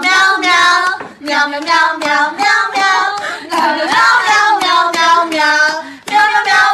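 A child singing a melody in a run of short, held sung phrases.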